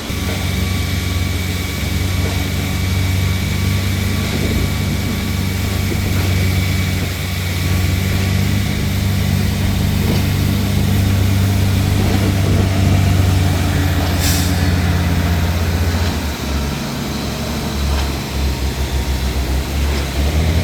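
Heavy diesel truck engine running steadily, with a short sharp hiss of air about two-thirds of the way through. Near the end the engine note drops and turns uneven.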